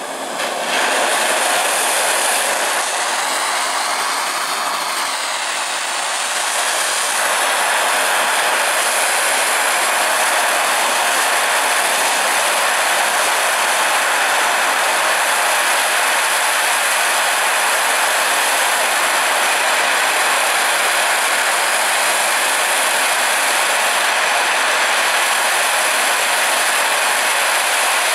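Gas torch burning with a steady loud hiss as its blue flame plays on a steel knife blade, coming up to full strength about half a second in and wavering a little in tone for a few seconds before settling.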